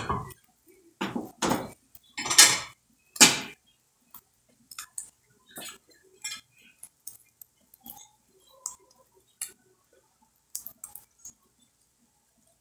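Dishes and cutlery being handled, clinking and knocking together: a few loud clatters in the first few seconds, then scattered lighter clicks and taps.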